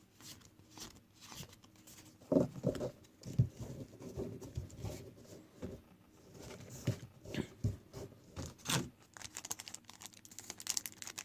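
Trading card packaging being torn open by hand: paper and wrapper tearing and crinkling, mixed with light knocks and scrapes of the box being handled, with more crinkling near the end.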